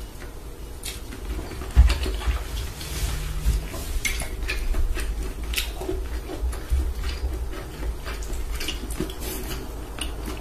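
Close-miked eating sounds: noodles slurped and chewed, with metal chopsticks and a plastic spoon clicking against a glass dish of broth. A low thump about two seconds in is the loudest sound.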